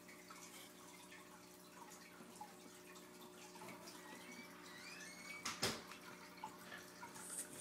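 Faint wet clicks and smacks of an iguana eating blackberries and cut fruit from a dish, with one louder sharp knock about two-thirds of the way through.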